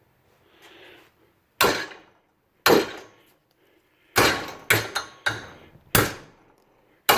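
A 3-pound hand sledgehammer striking a 6-inch swivel vise about seven times at uneven intervals, each blow a sharp metal impact followed by a brief ring. The blows test whether the vise stays solid on its bench mount.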